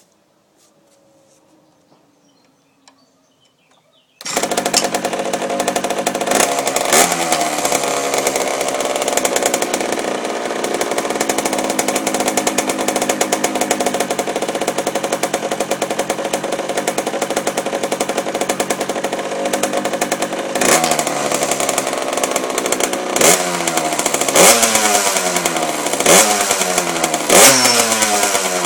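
Liquid-cooled Chinese minimoto's small two-stroke engine, fitted with a Dell'Orto PHBG 18 carburettor and a cone air filter, coming in abruptly about four seconds in after near quiet. It runs at a steady idle, with two quick throttle blips just after it comes in and a string of short revs in the last third, each one falling back to idle.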